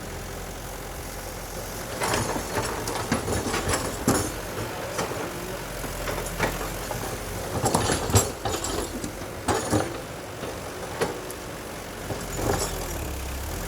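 Heavy diesel machinery engine running steadily, with repeated sharp knocks and clatters on top.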